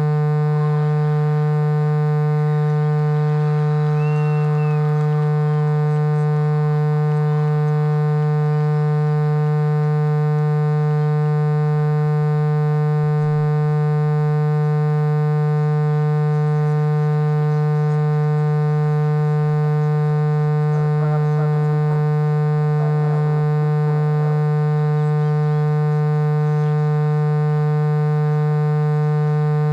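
A loud, steady electronic drone of several held tones that never changes in pitch or level. Faint crowd voices lie beneath it near the start and again about twenty seconds in.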